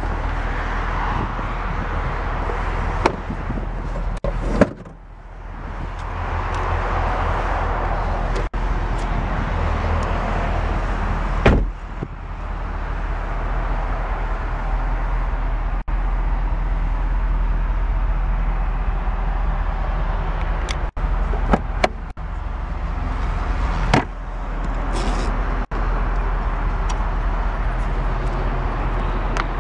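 Car doors and interior trim being handled in a convertible: scattered knocks and clicks, the strongest about four and a half and eleven and a half seconds in, over a steady low rumble and hiss.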